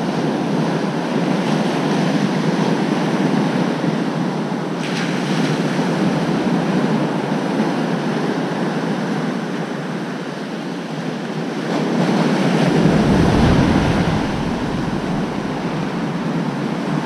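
Ocean surf breaking and washing up the beach close by, with wind buffeting the microphone. It swells louder, with a deeper rumble, for a couple of seconds about two-thirds of the way through.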